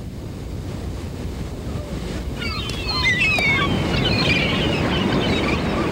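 Steady rushing noise of wind and surf, growing a little louder, with high, quick chirps over it from about halfway.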